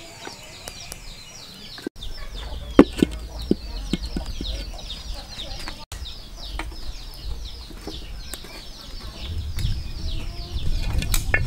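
Chicks peeping almost without pause, many short high chirps that fall in pitch, several a second. A few sharp knocks come about three seconds in, and a low rumble grows louder near the end.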